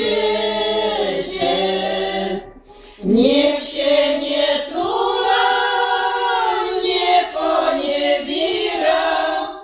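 A group of elderly women singing a folk song unaccompanied, drawing out long held notes, with a short break for breath about two and a half seconds in.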